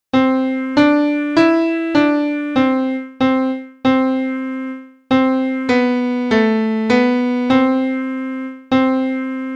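Piano playing a slow single-note beginner melody around middle C: C D E D C C, then a held C; after a short gap, C B A B C, then a held C. Each note is struck separately and fades before the next.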